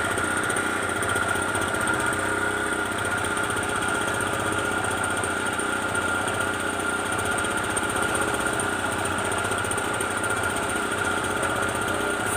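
Small air-cooled petrol engine running steadily at a constant speed, with a steady whine over its hum.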